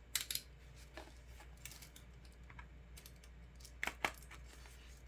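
Light clicks and taps of small hard items being handled, as nail polish bottles and their packaging are picked up and opened. Two sharper clicks come just after the start and another close pair about four seconds in.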